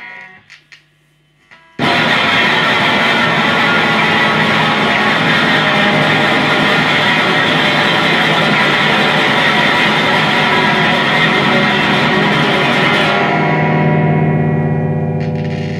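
Electric guitar through distortion and effects: after a few faint clicks, a sudden loud, dense wall of distorted noise starts about two seconds in and holds steady, its high end dropping away near the end to leave a lower sustained drone.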